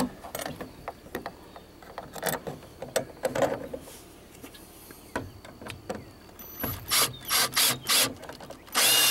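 Scattered clicks and knocks of hands setting a wood screw into perforated metal strapping against a wooden 2x4, then a power drill driving the screw: several short trigger bursts followed, near the end, by a steady run.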